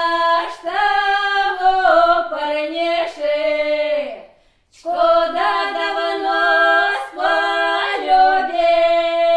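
Unaccompanied women's voices singing a Russian folk round-dance song, in two sung phrases with held notes and a short break about four seconds in.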